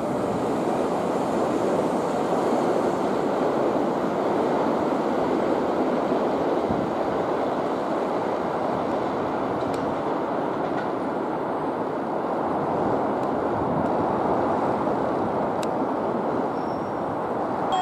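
Tokyo Metro 03 series train, the chopper-controlled five-door set, running at steady speed with a continuous noise of wheels and motors.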